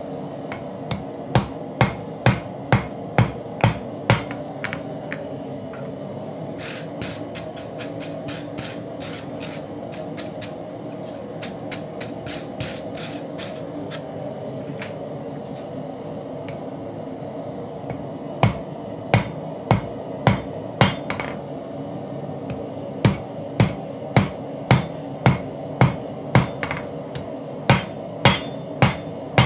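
Hand hammer striking a red-hot Damascus steel knife billet on an anvil in runs of steady blows, with a faster run of lighter strikes in the middle: drawing out the width of the blade.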